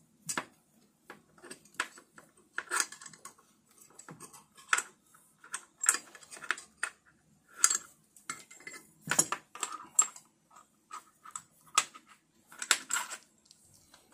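Irregular clicks and light metallic clinks of hands working a VIVO monitor arm's metal desk clamp and mounting plate, with a few louder knocks near the middle and near the end.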